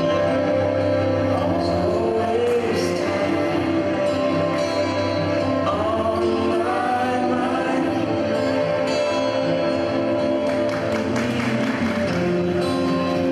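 Recorded pop song with singing and sustained backing chords, the winterguard's show music played back over loudspeakers.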